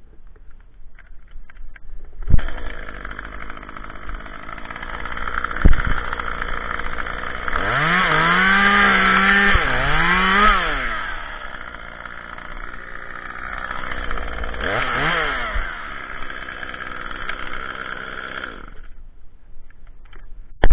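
Small two-stroke top-handle chainsaw starting up about two seconds in and running at idle. It is revved up to high speed for about three seconds in the middle and once more briefly later, then shuts off near the end.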